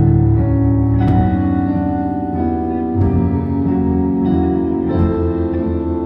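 Live band playing an instrumental passage: sustained keyboard chords with acoustic guitar and drums, the chords changing every second or two and a sharp drum hit about every two seconds.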